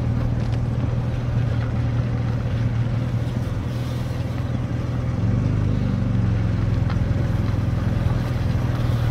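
A vehicle's engine droning steadily inside the cab with road noise while driving slowly on a dirt road. About five seconds in, the engine note rises a little and gets slightly louder as it takes more throttle.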